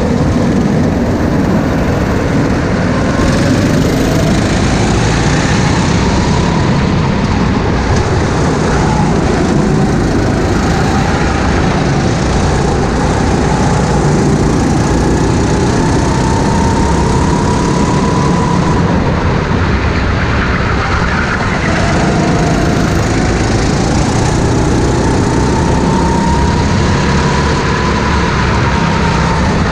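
Go-kart engine running at racing speed, its pitch climbing slowly for several seconds at a time and then dropping back, over and over, with a constant rushing noise underneath.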